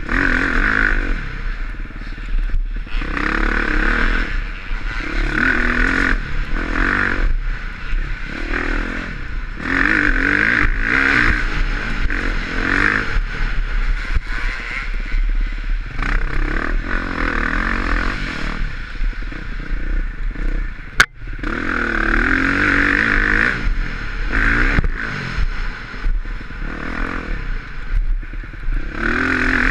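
2020 KTM 350XC-F single-cylinder four-stroke dirt bike engine under hard riding, its revs rising and falling every second or two with throttle and gear changes, over a steady low rumble and the rattle of the bike on rough ground. About two-thirds of the way through there is a single sharp crack with a brief drop in the engine note.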